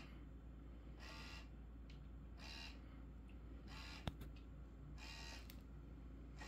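Small motor of an automatic laser cat toy whirring in short bursts at an even pace, about one every second and a half, as it moves the laser dot. A single sharp click a little after four seconds in.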